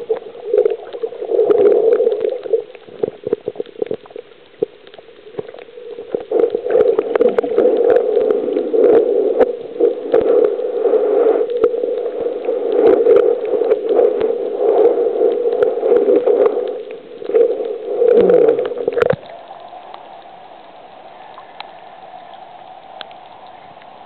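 Muffled underwater noise, heard through a camera held below the surface: a dull rushing with bubbling and clicks from swimming and water movement. About nineteen seconds in it cuts off sharply as the camera comes out of the water, leaving a quieter, steady hiss of water at the surface.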